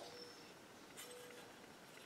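Near silence: room tone, with one faint click about halfway through.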